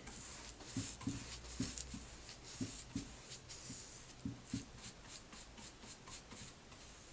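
Bristle paintbrush stroked back and forth over a wooden chair seat, laying on black paint: quick scratchy brushing strokes, about two a second, growing a little fainter toward the end.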